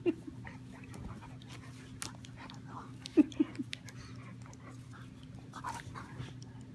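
Boxer dog panting while it mouths and play-bites a person's arm, with scattered clicks and rustles of the scuffle and a few short grunts about three seconds in.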